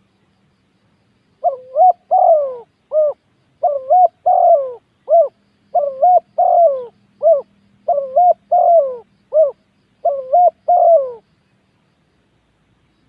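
Spotted dove cooing: about four phrases of three or four coos each, repeated with short pauses between them.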